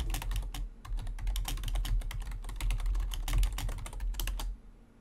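Fast typing on a computer keyboard: a quick, irregular run of key clicks that stops about four and a half seconds in.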